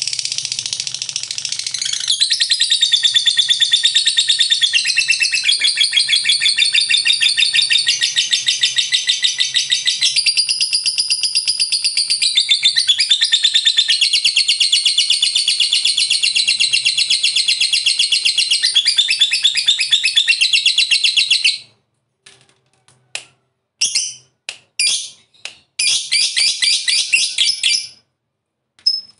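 A lovebird giving a long 'ngekek' chatter: one unbroken stream of fast, shrill repeated notes lasting about twenty-one seconds. It then stops abruptly and gives a few short bursts of chatter.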